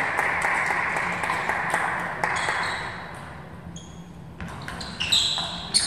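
Table tennis ball clicking sharply off bat and table, a few hits in the last second and a half as a rally gets under way. Before that, a broad din of hall noise dies away over the first three seconds.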